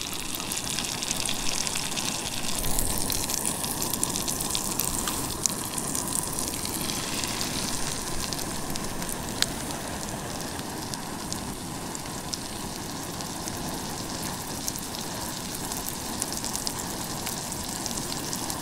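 Sirloin steak sizzling in hot peppercorn butter in a frying pan: a steady dense crackle and hiss, louder for a few seconds early on, then settling.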